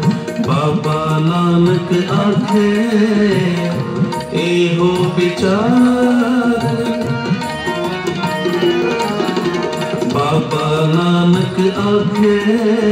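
Loud music with tabla drumming and a singing voice: the soundtrack of a light-and-sound show.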